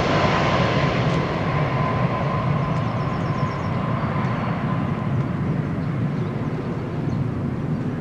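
Boeing 757-200's jet engines rushing as the airliner comes in to land, with a steady whine that fades out about halfway through while the overall roar slowly dies away.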